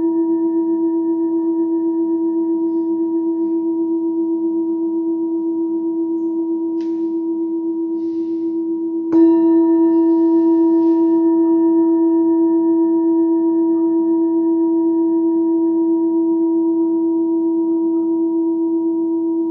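Singing bowl ringing with a steady, slowly fading hum. It is struck again about nine seconds in, and the ring swells with brighter overtones.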